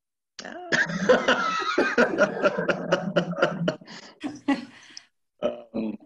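A person laughing for a few seconds, a run of quick breathy pulses that fades out, followed by two short vocal sounds near the end.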